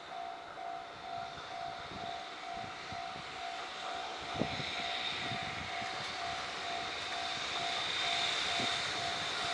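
Japanese level-crossing warning bell ringing in a steady repeating electronic two-tone ding, while the rushing noise of an approaching train swells louder. A single sharp knock sounds about halfway through.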